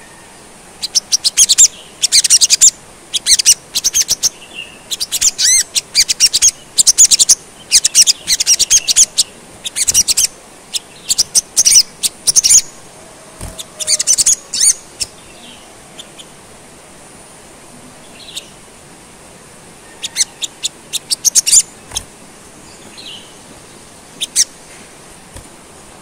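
Olive-backed sunbird ('sogon') singing: rapid, very high-pitched chirping phrases in a long burst of song that breaks off about halfway through, followed by a few scattered short calls. The song is filled with learned phrases imitating the 'pelatuk sampit'.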